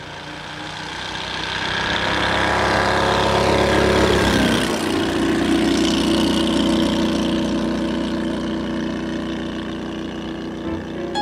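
Briggs & Stratton V2 627 cc twin-cylinder engine and propeller of a single-seat microlight flying past, growing louder as it approaches. Its pitch drops as it passes about four and a half seconds in, and it fades slowly as it flies away.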